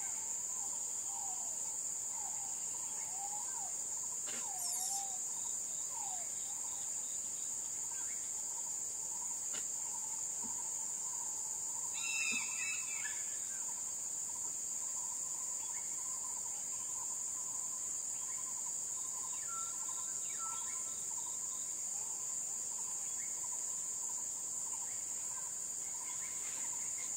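Steady high-pitched insect chorus of tropical forest with scattered bird calls. A short call comes about four and a half seconds in and a louder one about twelve seconds in.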